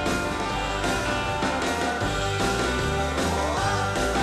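Background music, with a steady bass line and a note that slides upward about three seconds in.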